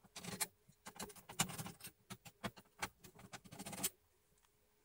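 Light, irregular metallic clicks and scrapes as a tool works at the tin-plated metal shield cover on a TV main board to pry it off; the clicking stops about four seconds in.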